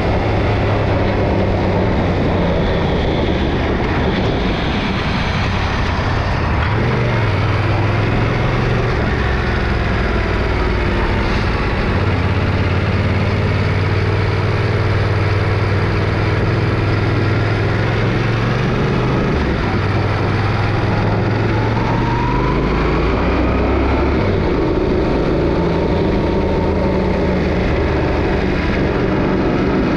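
Yamaha Ténéré 700's parallel-twin engine running under way, its note holding steady and stepping up and down in pitch several times as the speed changes, over a constant rush of wind and road noise.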